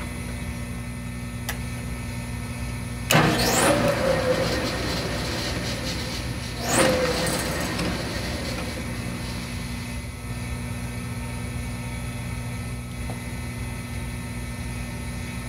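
Drill press drilling a tap-size hole for an 8-32 thread in a metal ring: two short cuts, about three seconds in and again about seven seconds in, each starting suddenly with a high squeal and a ringing tone, over a steady machine hum.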